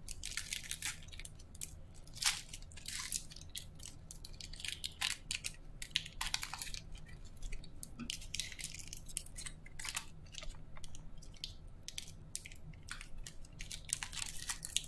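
Foil wrappers of Panini Optic basketball card packs being torn open and handled: irregular crinkling and ripping, in quick bursts throughout.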